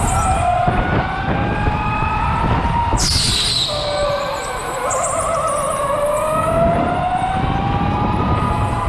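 Electric go-kart motors whining over tyre and floor rumble, the pitch rising and falling as the karts speed up and slow through the corners. A short high squeal sweeps down about three seconds in.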